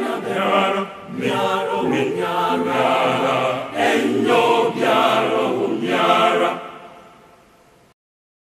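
Background music: a group of voices chanting one short phrase over and over, fading out near the end into a moment of silence.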